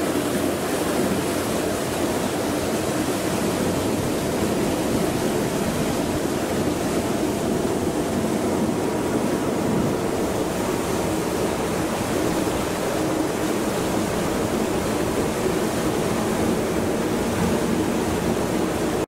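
Steady rushing noise aboard a moving motor boat: churning water and wind, with a low engine drone underneath.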